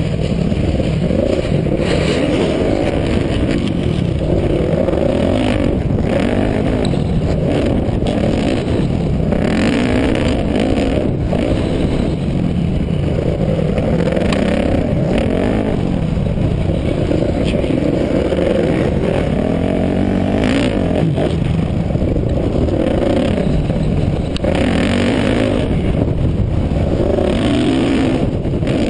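Dirt bike engine revving up and dropping off again and again under hard riding, heard from the rider's helmet camera, with bursts of wind rush on the microphone.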